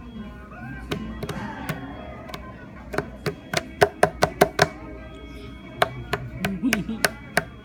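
A toddler's hands slapping a tabletop to drum out a beat: scattered slaps, then a quick run of about nine in a second and a half, and a second run near the end.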